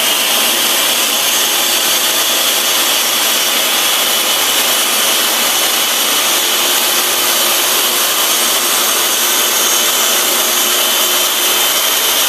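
Table saw running steadily at full speed with a constant high whine, its blade being raised up through the base of a raised-panel jig clamped to the saw.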